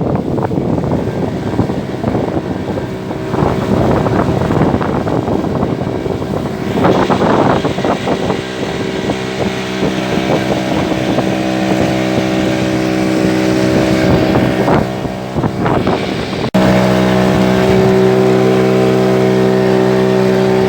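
A small fishing boat's motor running steadily under way, with a rush of wind and water over it at first. About three-quarters of the way through, the engine note becomes suddenly louder and steadier.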